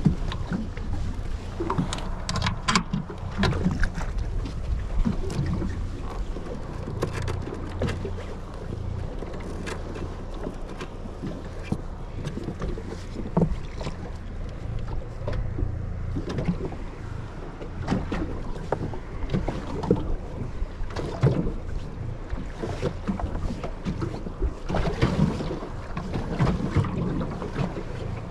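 Small boat rocking on the water: water slapping and knocking irregularly against the hull over a low rumble, with wind on the microphone.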